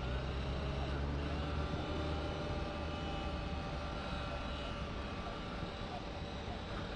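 Steady low motor hum with several faint, high, steady whining tones.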